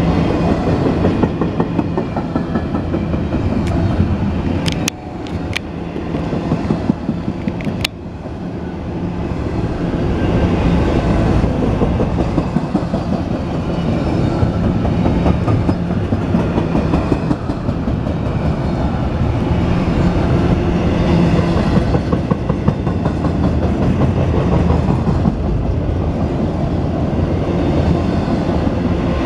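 Double-stack intermodal freight train rolling past at close range: a steady rumble of steel wheels on rail with rhythmic clacking. A few sharp metallic clanks come around five and eight seconds in.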